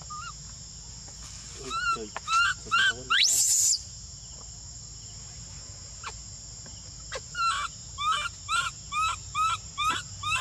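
Baby macaque crying with short, arching coo calls: a few calls about two seconds in ending in a sharp rising shriek, then a run of repeated calls, about two a second, near the end. Insects buzz steadily behind.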